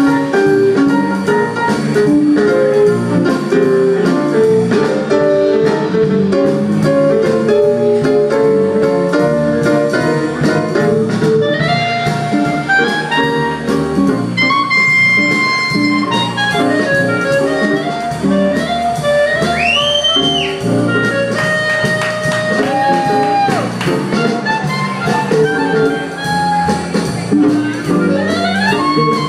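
Live jazz band playing, with keyboard, guitar and saxophone. From about halfway a horn takes a solo line of long held notes that bend and slide in pitch.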